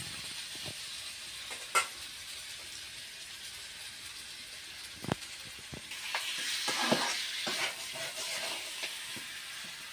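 Chicken curry with potatoes sizzling in a kadai over a wood fire, a steady frying hiss. A metal spatula scrapes and knocks against the pan as it is stirred, with a few sharp clicks and the heaviest scraping about six to eight seconds in.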